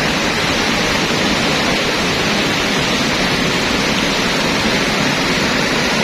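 Steady rushing of river rapids, a loud even roar of water.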